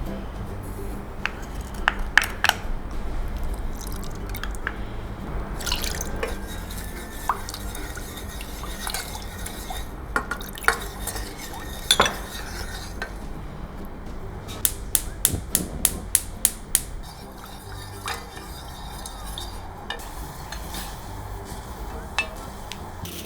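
Kitchen utensils and dishes clinking and knocking during food preparation, with a run of about ten quick, evenly spaced clicks about two-thirds of the way through.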